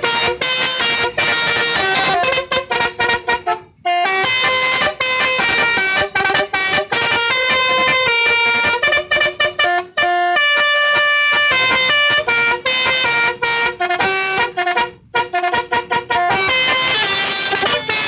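Bus basuri horn, an electric musical horn, playing a quick tune of short and held notes, with brief breaks about four and fifteen seconds in.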